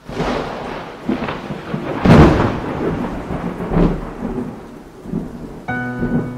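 Rolling thunder over rain, swelling several times, loudest about two seconds in. Near the end a piano begins playing held notes.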